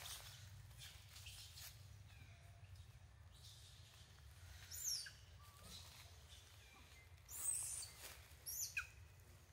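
Faint high-pitched bird chirps: a few short calls, each falling in pitch, about halfway through and again near the end, over a steady low background rumble.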